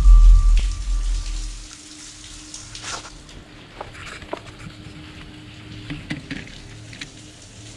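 A deep low boom fades away over the first second and a half. After it come faint scattered clicks and crackling rustles over a steady low hum in an underground tunnel.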